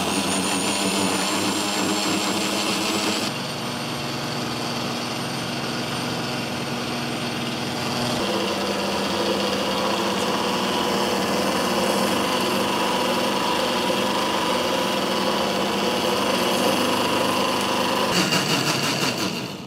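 Countertop blender running at speed, puréeing hot mushroom sauce, with its lid held down. The motor note shifts about three seconds in and again about eight seconds in, turns to a fast fluttering shortly before the end, then cuts off.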